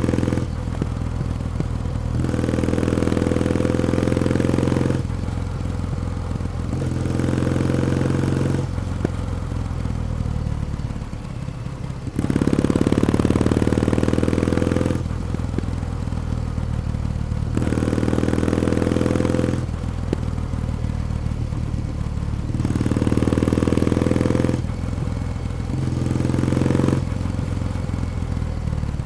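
Kawasaki W1 Special's vertical-twin engine and exhaust under way, the throttle opened and rolled off again about six times, the pitch rising through each pull and dropping back between them.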